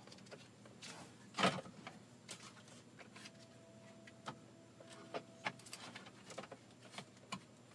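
Scattered small plastic clicks and rattles of wiring-harness connectors being released and unplugged from the back of a Ford F-150's center-stack radio and climate-control bezel, with one louder click about one and a half seconds in.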